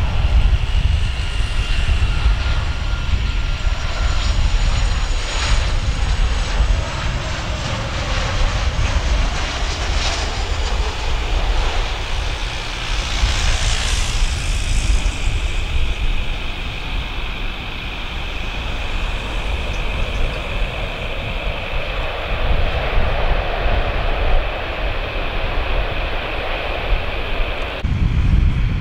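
Boeing 737-800 jet engines (CFM56-7B) whining steadily on approach and landing over a heavy low rumble, with a rushing surge of engine noise about halfway through as the airliner touches down.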